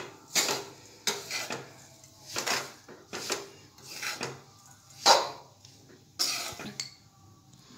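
Metal spatula scraping and stirring a coarse radish-and-carrot pickle mix in an aluminium karahi, in separate strokes about once a second, the loudest a little past halfway.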